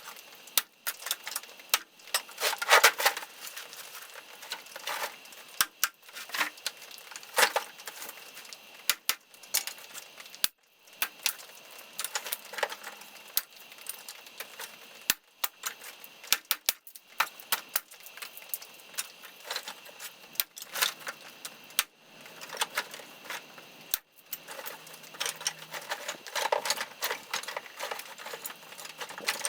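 Dry branch firewood being handled and worked by hand: irregular sharp clacks and knocks of wood on wood. Denser clattering comes about three seconds in and again near the end.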